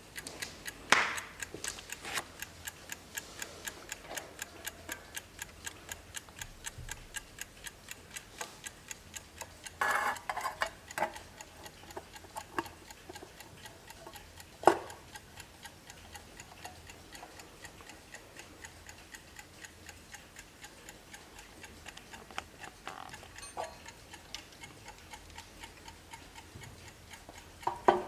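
Vintage 1950s Wehrle wall clock's movement ticking fast and evenly, with a few louder knocks now and then.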